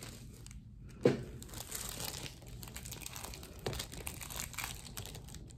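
Paper on a doctor's exam table crinkling and rustling irregularly as a baby shifts about on it, with a couple of sharper crackles, the first about a second in.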